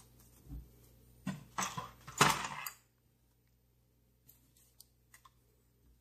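A small plastic zip-lock bag being handled and pulled open: a few short crinkling rustles between about one and three seconds in, the loudest near the middle, then a few faint clicks.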